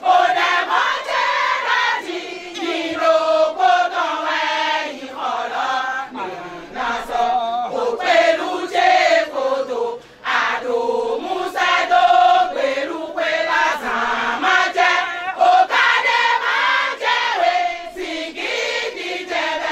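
A group of women singing a chant-like song together.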